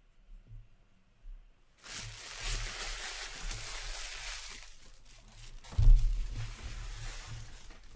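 Card-box packaging being handled: a crinkling, rustling noise for about three seconds, then a single dull thump on the table about six seconds in.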